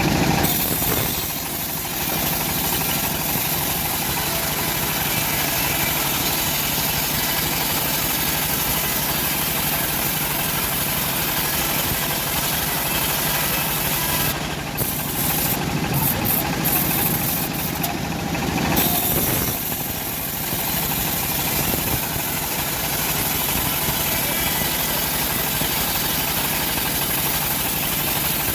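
Engine of a homemade bandsaw sawmill running steadily, with a brief uneven stretch about halfway through.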